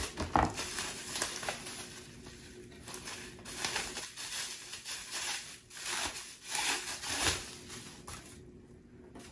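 Crinkling and rustling of a metallic bubble-wrap mailer and kraft paper being handled and opened, in irregular bursts that ease off near the end.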